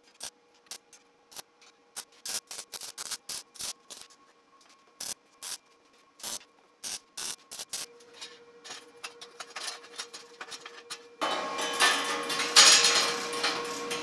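MIG welder tacking the steel rods of a bike cargo cage: many short, sharp crackling bursts with quiet gaps between them, then about eleven seconds in a louder continuous stretch of welding noise.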